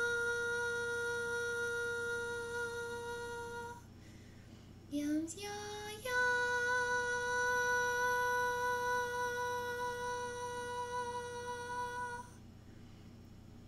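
A woman's voice toning wordless 'light language': one long held note that stops a little before four seconds in, then a short upward slide in pitch. After that comes another long note at about the same pitch, which ends about twelve seconds in. A faint steady low hum runs underneath.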